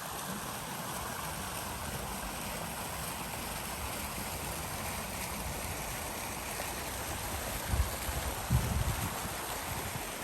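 Water fountain splashing and falling steadily into its pool, with a few low buffets of wind on the microphone near the end.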